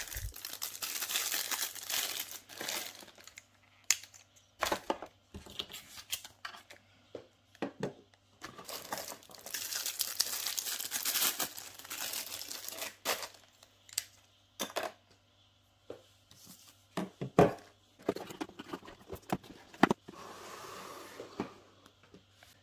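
Plastic packaging crinkling and rustling as it is unwrapped, in two longer spells and a softer one near the end, with scattered sharp clicks and knocks of small plastic parts being handled and set down.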